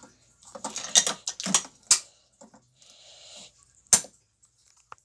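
Plastic Lego pieces clicking and clattering as they are handled, with a short scraping hiss and then one sharp click near the end.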